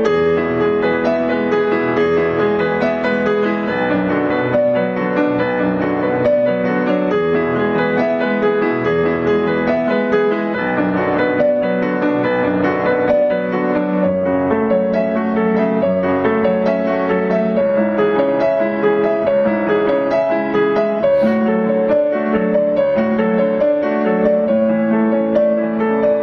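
Solo piano music, with held notes and chords changing throughout.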